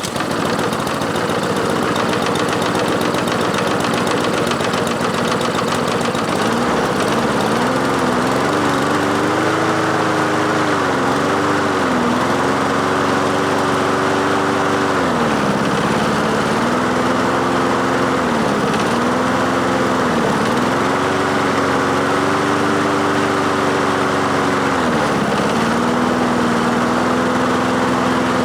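Honda small engine on a walk-behind lawn mower running on choke just after being started, its speed dipping and picking back up every few seconds rather than holding steady. The engine is running too slow.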